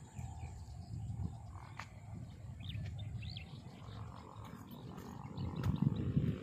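Wind buffeting the phone microphone outdoors, an uneven low rumble that grows louder near the end. A couple of faint, short, high bird chirps about three seconds in.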